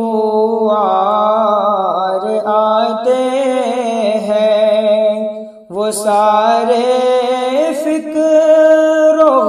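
A solo voice singing a Dawoodi Bohra devotional madeh in Urdu, drawing out long wavering notes. It breaks for a breath about two-thirds of the way through, then goes on into the next line.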